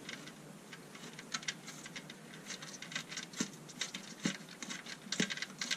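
Small screwdriver working a tight screw out of a plastic housing: faint, irregular light clicks and scratches as the screw turns, with a few sharper ticks in the second half.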